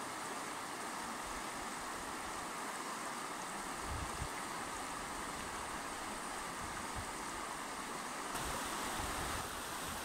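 Rushing water of a fast, shallow mountain river running over stones: a steady, even rush, with a couple of faint low bumps about four seconds in.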